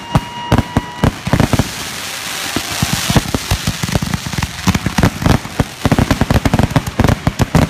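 Fireworks finale barrage: a rapid, dense string of bangs from aerial shells, several a second, with a stretch of crackling hiss about two to three seconds in and brief whistles near the start.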